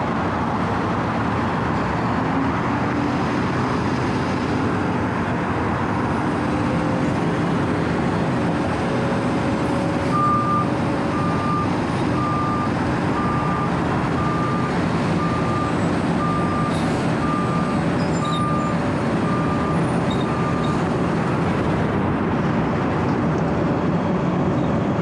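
Wirtgen W 120 CFi cold milling machine (4-foot drum) running under load, its diesel engine and cutting drum grinding asphalt in a loud, steady noise. From about ten seconds in, a backup alarm beeps about once a second for about ten seconds.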